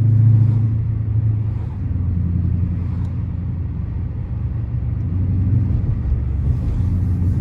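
Dodge R/T's 5.7-litre HEMI V8 running at a steady cruise, a low, even exhaust drone heard from inside the cabin.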